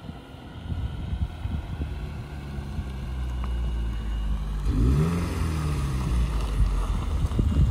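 Subaru WRX's turbocharged flat-four engine running as the car drives up and pulls in, growing louder as it nears, with a brief rise and fall in engine pitch about five seconds in.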